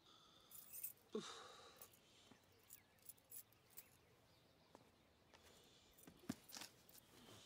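Near silence with a faint sigh about a second in, then a few soft clicks and taps as a cardboard box is handled near the end.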